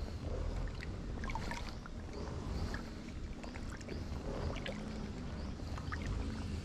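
Water sloshing and splashing around an angler's waders while wading through shallow reservoir water, with scattered small splashes over a low rumble.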